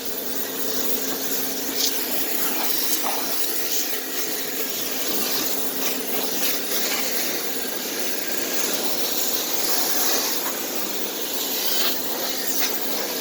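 Pressure washer running with a steady hum, its water jet hissing as it sprays down a riding mower's engine.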